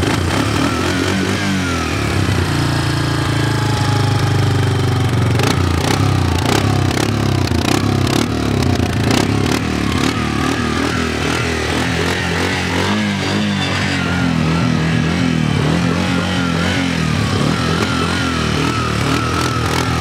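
ATV engine running and being ridden off, its pitch rising and falling with the throttle, with scattered knocks and rattles from the machine along the way.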